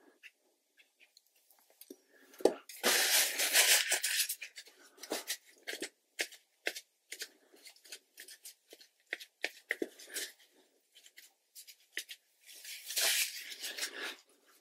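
Crinkling, tearing-like rustle of paper being handled, in two loud spells of over a second each, about two and a half seconds in and again near the end, with scattered small clicks and taps in between.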